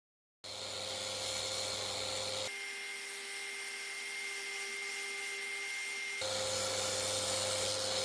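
Electric woodworking power tool running steadily with a motor whine. Its tone shifts abruptly about two and a half seconds in and shifts back about six seconds in.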